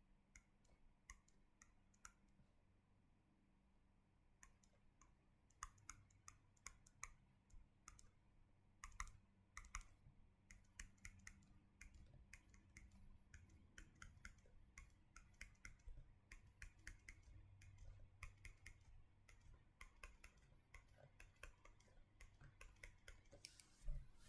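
Near silence with faint, irregular small clicks and taps, sparse at first and more frequent from about five seconds in, over a faint low steady hum.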